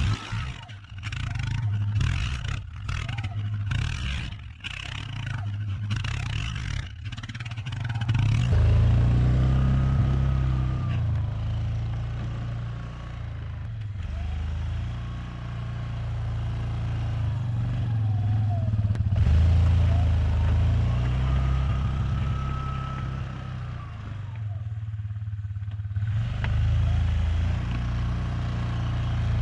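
2007 Yamaha Kodiak ATV's engine running under load as it pushes deep snow with a Warn plow blade, its pitch rising and falling as it is worked. Sharp crackling knocks come through the first several seconds, and about eight seconds in the engine grows louder and stays up.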